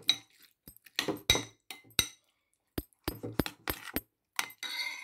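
Metal cutlery stirring yogurt raita in a glass mixing bowl, clinking against the glass in irregular taps, some of them ringing briefly.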